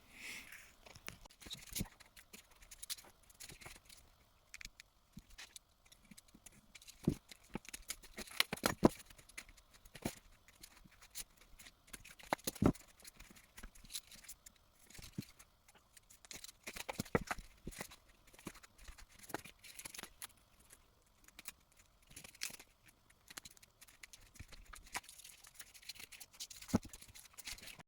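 Sheet of foam being cut into pieces and handled by hand: irregular snips, scrapes and light clicks spread through, with a few sharper ones a little after eight and twelve seconds in.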